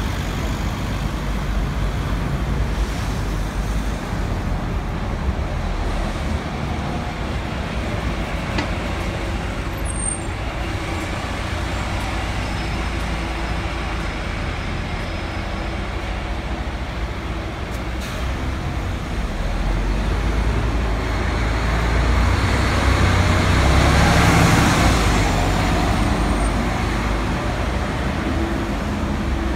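Steady road traffic on a busy city high street, engines and tyres running past. A louder vehicle passes close by about two-thirds of the way through.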